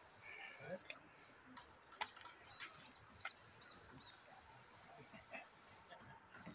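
Near silence: faint outdoor ambience with a few soft clicks and several short, high chirps near the middle.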